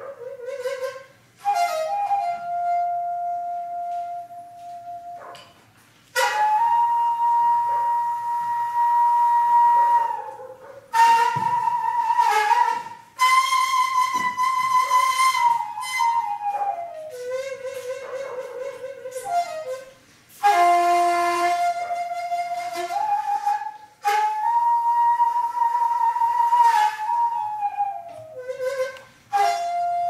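Daegeum, the Korean transverse bamboo flute, playing a slow melody of long held notes that bend and slide between pitches, in phrases separated by short pauses for breath.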